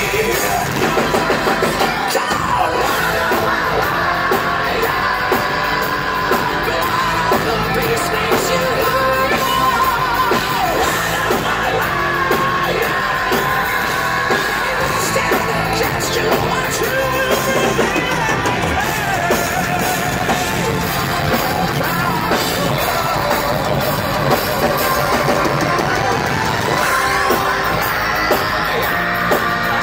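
Heavy metal band playing live: distorted electric guitars, bass and drums, with a male lead singer singing high over them.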